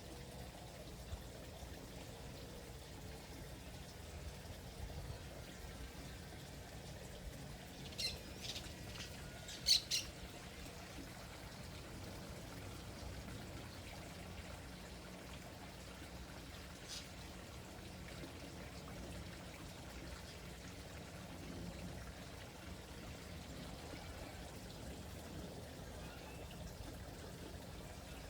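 A bird giving a few short, sharp calls, a cluster of them near the middle and one more a few seconds later, over a steady faint run of water.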